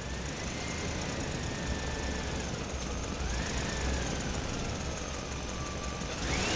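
Small electric motor of a toy dump truck whining as it drives, its pitch wandering up and down over a low rumble. Near the end the whine rises and falls again as the tipper bed lifts to dump its load of mud.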